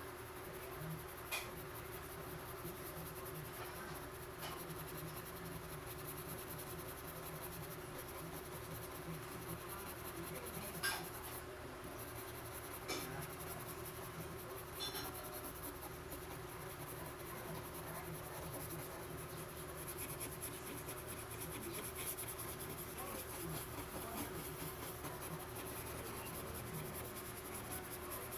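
Stiff bristle brush scrubbing soft pastel into paper: a dry, scratchy rubbing, with a few light clicks scattered through, over a steady hum.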